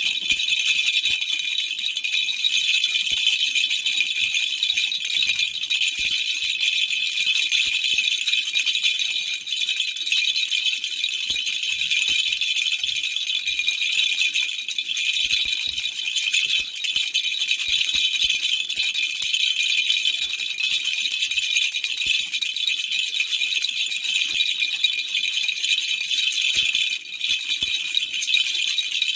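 Baby rattle toy shaken continuously, a dense high-pitched jingling and clinking that keeps going without a break.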